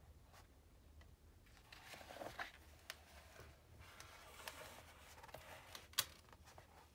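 A page of a large hardback picture book being turned by hand: a soft paper rustle and swish, with a single sharp tap near the end.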